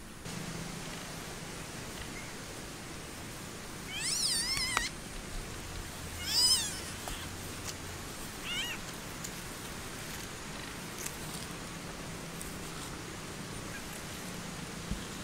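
Three short, wavering, high-pitched animal calls, the middle one the loudest, over a steady background hiss.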